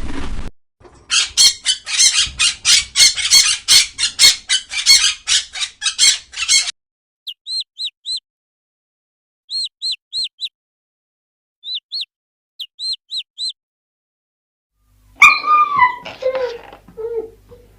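Bird calls: a fast run of harsh squawks, then short, high chirps in little groups of two to four. Near the end comes a single louder animal call that slides steeply down in pitch.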